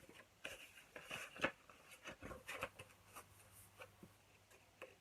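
Faint rustling of paper and card being handled, with scattered light taps and scrapes.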